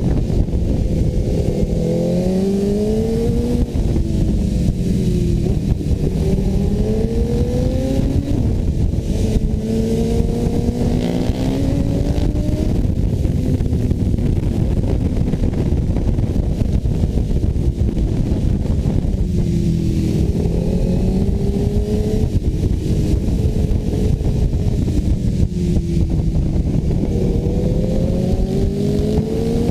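Sport motorcycle engine accelerating hard and easing off, its pitch climbing in long sweeps and dropping back several times as it pulls through the bends, steadier through the middle. A dense low rumble runs underneath.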